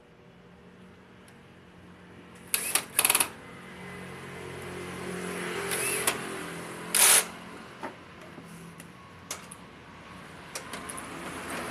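Cordless electric drill running as it bores into wood, its motor hum swelling and easing over several seconds, with a few short, sharp, high-pitched bursts about three and seven seconds in.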